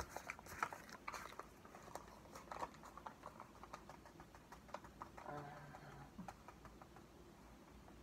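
Crinkling and crackling of a cornstarch bag as it is handled and tipped up to pour into the mouth, with many small sharp ticks, busiest in the first few seconds. A brief closed-mouth hum comes a little after five seconds in.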